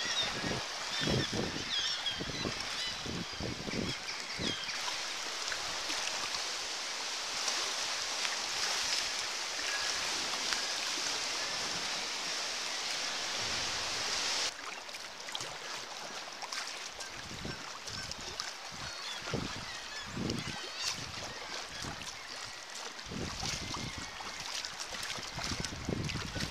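A seabird colony on sea cliffs, many birds calling at once in a continuous din, with water slapping and splashing against the kayak and paddle. About halfway through, the sound cuts abruptly to a slightly quieter stretch of the same calls and splashes.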